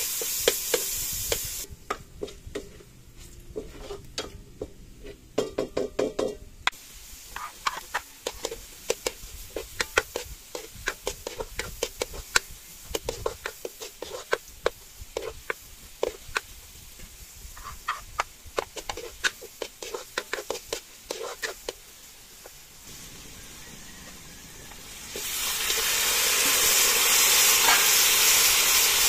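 Garlic and then onions frying in oil in a wok over a wood fire, with a ladle scraping and tapping against the wok in quick, irregular strokes. Near the end a loud, dense sizzle starts as duck meat and chicken gizzards go into the hot oil.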